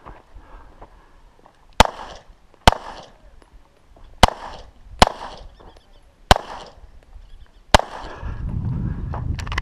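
Six shots from a semi-automatic pistol, fired at an uneven pace, loosely in pairs, each followed by a brief echo. A low rumble comes in near the end.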